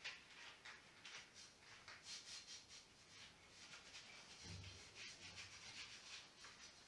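Faint rubbing and scratching from hands handling things: a run of short, irregular scratchy strokes, with one soft low bump about four and a half seconds in.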